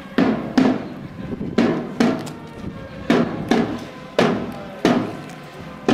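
Drum beats in a slow processional rhythm: about nine strikes, mostly in pairs about half a second apart with a longer pause between pairs, each ringing briefly.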